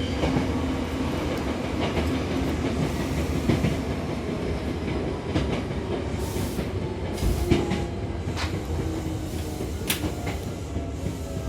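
Hankyu Takarazuka Line electric train running between stations: a steady rumble of wheels on rail with scattered clicks from the track and a few short hisses.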